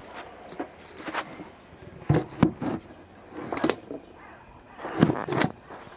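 Irregular knocks and clatter in several short clusters, the loudest about two seconds and five seconds in.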